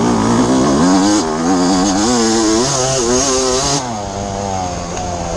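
Suzuki RM250 two-stroke motocross engine under way, its pitch rising and falling again and again with the throttle. It drops off about four seconds in.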